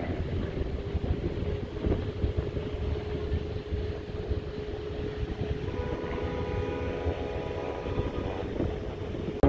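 Aerobatic airplane's engine droning steadily during an air-show display, its tone growing fuller and clearer in the second half, over a continuous low rumble.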